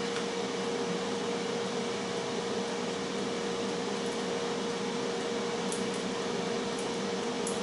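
Tristar FR-6989 air fryer running while it cooks: a steady fan whir with a constant hum.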